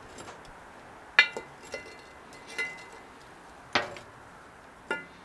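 Metal charcoal tongs setting briquettes one at a time onto a cast-iron Dutch oven lid: a handful of sharp metallic clinks, irregularly spaced, a couple of them with a short ring.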